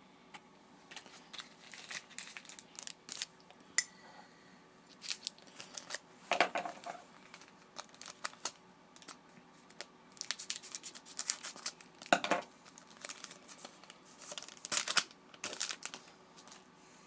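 Trading-card pack wrapper being handled and torn open: irregular crinkling rustles and short rips, with several louder tearing strokes along the way.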